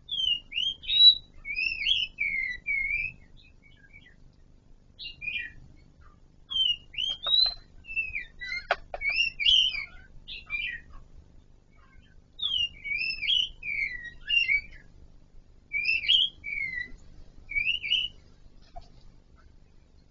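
Chestnut-eared laughingthrush singing in short bursts of clear whistled, up-and-down notes, repeated in phrases every few seconds. A single sharp click sounds about nine seconds in.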